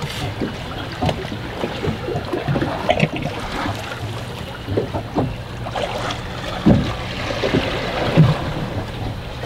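A fishing boat on the water: a steady low hum under irregular knocks and slaps of water against the hull.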